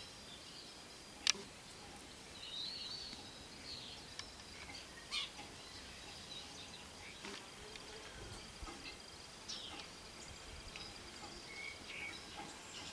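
Outdoor ambience with small birds chirping now and then, and a single sharp click about a second in.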